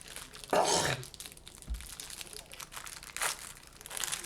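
Trading-card hanger box packaging being torn open by hand, with crinkling and tearing in a few short bursts: a larger one about half a second in and smaller ones near the end.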